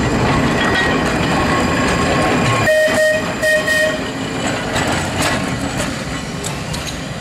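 Manx Electric Railway electric tramcar running along the track with a steady rumble of wheels and running gear. About three seconds in, its warning whistle sounds two short toots.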